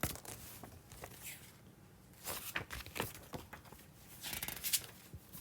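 Paper rustling, a few soft crinkles as pages of a picture book are handled and turned.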